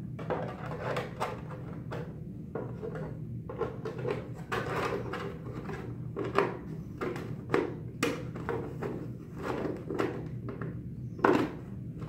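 Plastic helmet shell pieces being handled and pressed together: irregular rubbing, creaking and clacking of thin plastic, with a sharper knock near the end, over a steady low hum.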